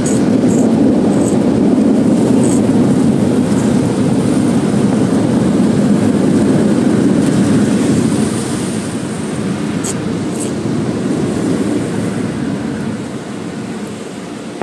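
Automatic tunnel car wash machinery heard from inside the car's cabin: a steady, loud rumbling wash noise that eases after about eight seconds and fades further near the end, with a couple of faint clicks about ten seconds in.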